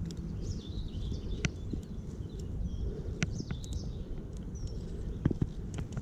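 Small birds chirping and twittering over a steady low rumble, with a few sharp clicks scattered through.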